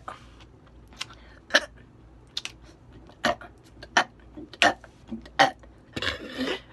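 Short clicky throat and mouth noises at irregular intervals, about eight in all, then a short rough burst near the end: a person working at bringing up a burp that gets stuck.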